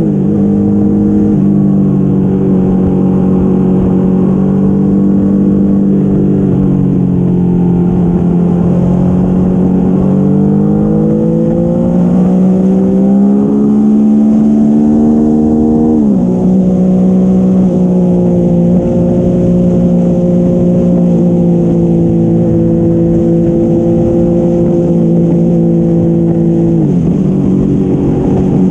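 Motorcycle engine running at highway speed, with wind noise on the microphone. The engine note holds steady, climbs slowly as the bike accelerates from about ten seconds in, then drops suddenly about halfway through and again near the end, as at an upshift.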